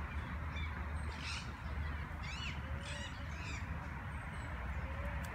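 Birds calling in the trees: a quick run of short, high chirps about one to three and a half seconds in, over a steady low rumble.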